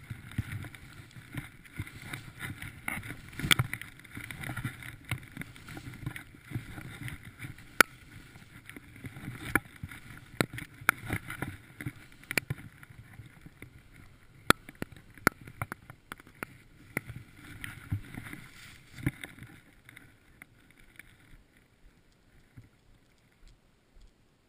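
Skis running through deep powder snow: a steady rushing hiss broken by frequent sharp knocks and clicks. It dies away about twenty seconds in as the skiing stops.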